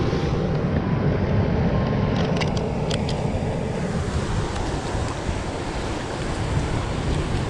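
Ocean surf breaking on a lava-rock shoreline, with wind buffeting the microphone: a steady low rumble. A few small clicks sound about two to three seconds in.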